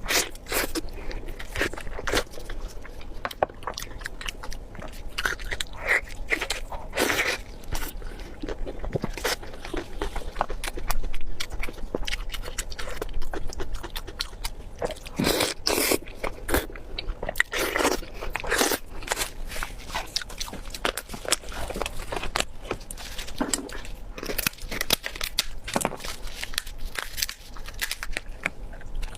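A person eating spicy pork belly close to the microphone: steady chewing and biting, a dense, irregular run of short clicks with a few louder bursts around the middle.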